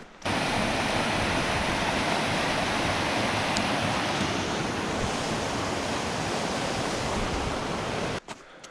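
Mountain creek rushing and splashing over rocks in a small cascade: a loud, steady rush of water that starts suddenly and cuts off sharply near the end.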